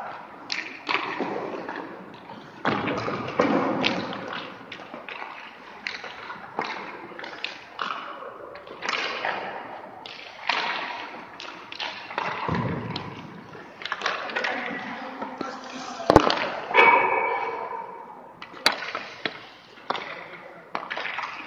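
Hockey pucks and sticks knocking against a goalie's pads, the ice and the boards during a drill: irregular echoing knocks and thuds about a second apart, with one loud sharp crack about sixteen seconds in.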